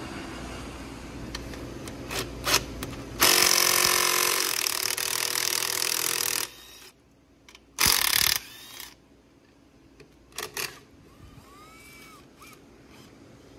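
Handheld power tool running in a burst of about three seconds, then a shorter one of under a second, spinning out bolts during a dirt bike teardown. Sharp metallic clicks of tools and parts come before and after.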